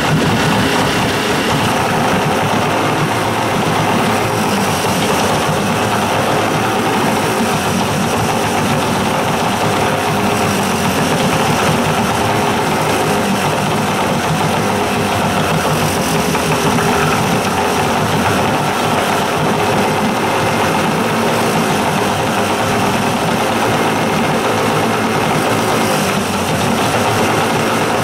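Old two-stroke outboard motor running steadily while being fogged: fogging oil is sprayed into it and its fuel line is unhooked, so it is burning the last fuel in the carburetor.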